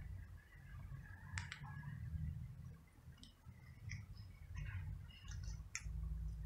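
Grey tabby kitten crunching dry kibble off the ground: faint, scattered crisp clicks and crackles, with a low rumble underneath.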